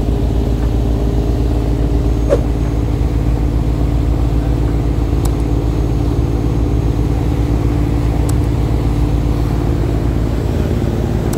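Fishing boat's engine running steadily under way, a constant low drone, with the rush of the wake behind it.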